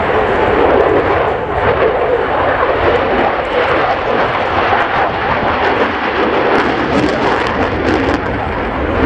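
Polish Air Force F-16C fighter jet's Pratt & Whitney F100 turbofan engine, a steady loud roar as the jet flies past and banks through a display turn.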